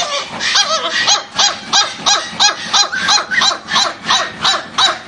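Puppy yapping in a rapid run of short, high-pitched yelps, about three a second, each call rising and falling in pitch.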